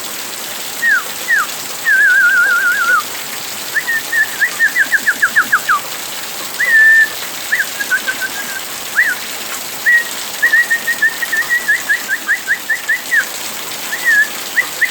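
Clear whistling in short phrases: single up-slurred notes, a wavering warble and runs of quick falling slurs at about eight a second, over the steady hiss of pouring rain.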